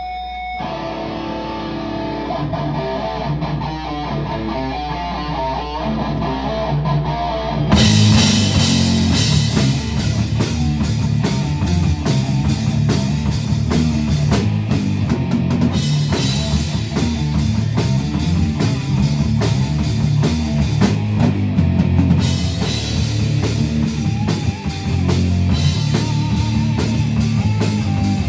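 Live heavy metal band playing a very heavy song: a quieter guitar intro for the first eight seconds or so, then drums and bass come in together and the full band plays loud and heavy.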